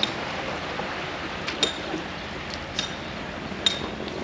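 Steady wash of sea water and wind around a small round basket boat, with several sharp, briefly ringing clinks, the loudest about a second and a half and three and a half seconds in.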